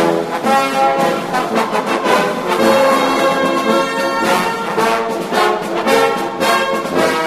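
Background music: brass and orchestral instruments playing held notes over a steady beat.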